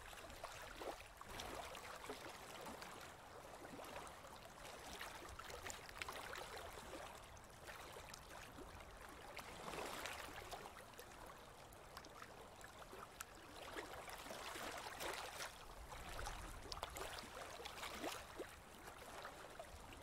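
Faint water ambience of small waves lapping: a steady wash of water with many small splashes and gurgles.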